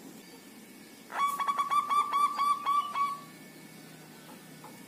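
Zebra dove (perkutut) singing one phrase: a quick run of about nine short, rolling coo notes at a steady pitch, about five a second, ending on a slightly longer note. The phrase starts about a second in and lasts about two seconds.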